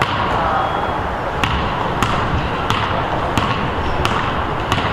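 Basketball being dribbled on a gym floor: sharp bounces at an even pace, about one every two-thirds of a second, starting about a second and a half in, over steady background noise.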